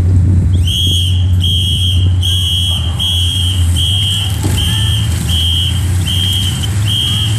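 Electronic beeping, a short high beep repeated about one and a half times a second, starting about a second in, over a loud steady low hum as the bunch of racing cyclists rides past.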